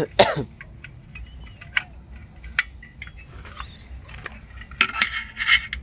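Metal clicks and clinks of a portable camping gas stove's folding pot-support arms and legs being swung out and snapped into place, with a brief burst of handling noise near the end. Crickets chirp faintly in the background.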